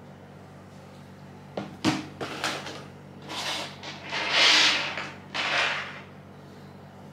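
Handling noise close to the microphone: a few light knocks, then three rustling swells, the middle one loudest, over a steady low hum.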